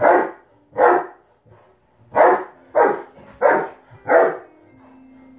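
A dog barking six times, loudly: two barks, a short pause, then four more in quicker succession.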